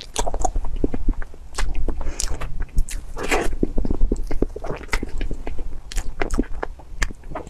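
Close-miked wet smacking and chewing of a mouthful of whipped-cream cake, a run of short sharp clicks, with a metal spoon scooping through the soft cream.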